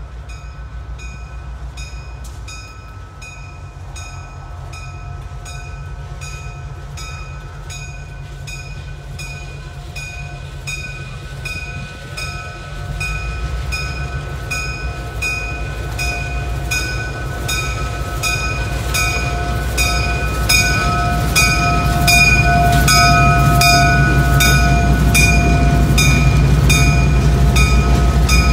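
A train approaching, its low rumble growing steadily louder, while a bell rings over it with even, repeated strikes a little more than once a second.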